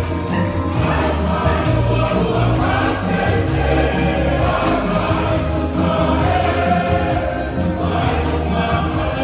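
Church choir singing a hymn together over an instrumental backing with a bass line that steps from note to note.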